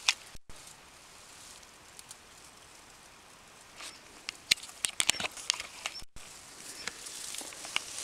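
Rustling and scattered sharp clicks and knocks of a camera and rifle being handled and carried through dry forest undergrowth, busiest about halfway through. The sound cuts out completely for an instant twice.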